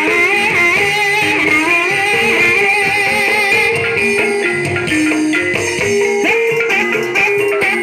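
Banyumasan gamelan music for an ebeg (kuda lumping) dance, playing continuously. Struck melodic notes step along at mid pitch, with a wavering high melody line above them.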